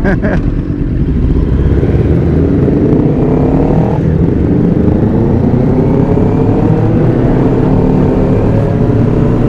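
2015 Kawasaki Ninja ZX-10R's inline-four engine pulling away from a stop. The revs rise, drop at a gear change about four seconds in, then rise again in the next gear.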